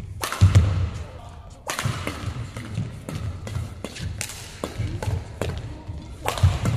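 Fast men's doubles badminton rally: sharp racket strikes on the shuttlecock come every second or less at an uneven pace, over the thuds of players' footwork on the court. The loudest strikes fall about half a second in and near the end.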